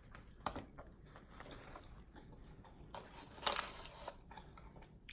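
Close-miked eating sounds: faint chewing with scattered small clicks, and a louder crunchy stretch about three seconds in.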